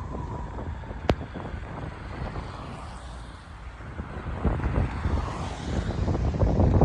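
Low, gusting rumble of wind buffeting a moving microphone, with one sharp click about a second in; the rumble grows louder near the end.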